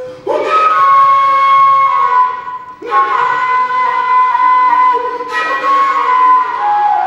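Music led by a woodwind, probably a flute, playing a melody of long held notes. Each phrase opens with a note that slides up into pitch, a new one about every two and a half seconds.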